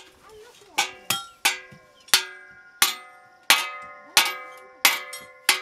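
Blacksmith's hammer striking metal, about nine ringing blows roughly every half second to second after a quiet first moment, each blow leaving a bell-like ring in the metal.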